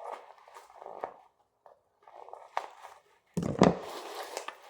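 Plastic packaging crinkling and rustling as a sealed snack pouch is pulled at to open it, turning louder and rougher with heavy handling noise about three and a half seconds in.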